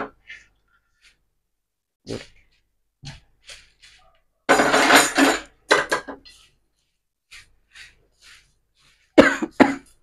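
Dry-roasted grains, fried gram and cashews rattling and scraping against a steel plate and pan as they are tipped in and stirred with a wooden spatula, in short irregular bursts, the loudest about halfway through and another near the end.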